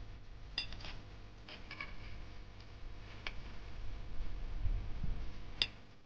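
A metal spoon clinking against a steel pot as turmeric rhizomes are stirred in water, a few sharp ringing clicks over a low rumble.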